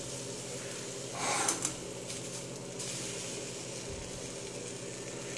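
Hot dogs sizzling in a frying pan, a steady hiss that swells briefly about a second in.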